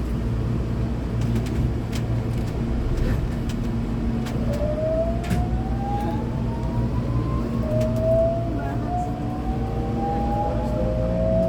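Hankyu 8200-series train's Toshiba GTO-VVVF inverter whining as the train accelerates: from about four seconds in, a string of tones each glides upward in pitch, one after another. Under it runs the train's steady low rumble.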